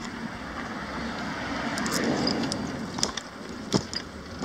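A car passing on the street: a rushing sound that swells to its loudest about two seconds in and then fades. A few sharp rattling clicks come near the end.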